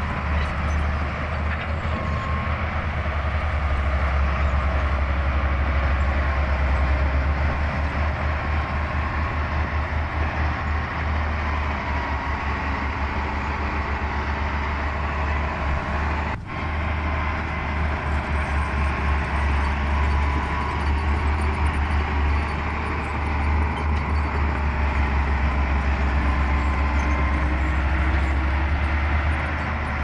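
Heavy diesel engine of earth-moving machinery running steadily with a deep, even throb, with a brief dip in level about halfway through.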